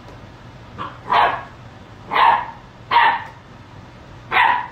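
Great Dane puppy barking: four short barks, the first about a second in.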